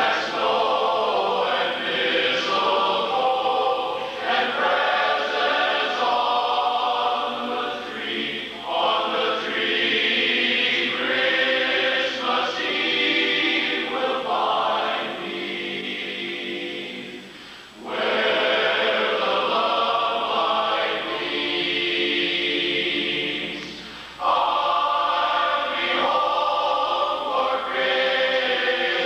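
Men's barbershop chorus singing a traditional Christmas song a cappella in close four-part harmony, in long held phrases. The singing softens in the middle, then comes back strongly after a short break about three-quarters of the way through.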